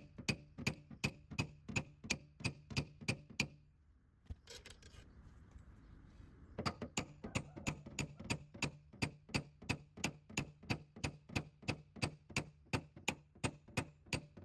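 Small hammer tapping steadily on a paintless dent repair bar worked into the dog leg of a car's rear quarter panel, about two to three light taps a second. The tapping stops for about three seconds a few seconds in, then carries on at the same pace.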